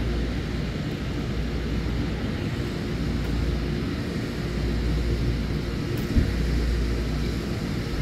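Wind rumbling on the microphone outdoors, a steady low noise that swells and dips, with one sharp knock about six seconds in.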